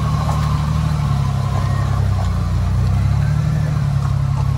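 Jeep TJ Wrangler Rubicon's 4.0-litre inline-six running steadily at a low, even pitch as the Jeep crawls slowly over a rocky trail.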